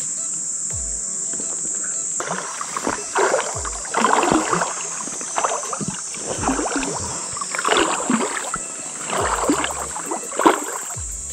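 Water splashing and sloshing in irregular bursts, about one a second, around a float tube moving on the water. Behind it runs a steady high drone of insects.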